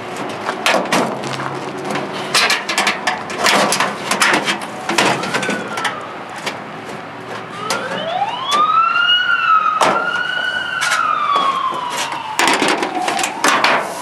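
Microwave oven's sheet-metal outer cover being pried and worked loose with a screwdriver: repeated clanks, knocks and scrapes of thin metal. About halfway through, a siren wails once over it, rising in pitch, holding, then slowly falling.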